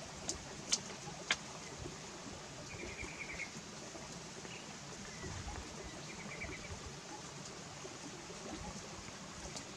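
Steady rush of a small stream running over rocks, with a bird giving a short rapid trill twice. A few sharp clicks sound in the first second and a half.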